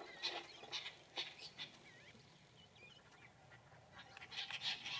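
Banded mongooses making a string of short, quick calls that thin out in the middle, where a few faint high chirps sound, and pick up again near the end.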